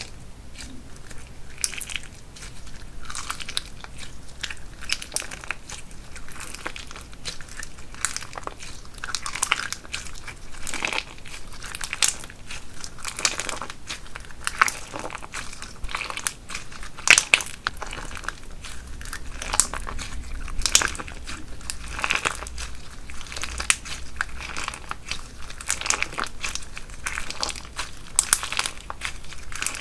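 Crunchy slime being squeezed and worked by hand, giving a dense, irregular run of crisp crackles and pops.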